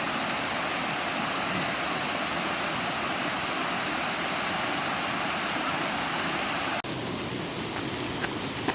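Steady rushing of a river's flowing water near a small waterfall. About seven seconds in it breaks off for an instant, then carries on a little quieter.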